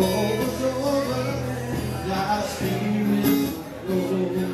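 Live cover song played on guitar, with a man singing.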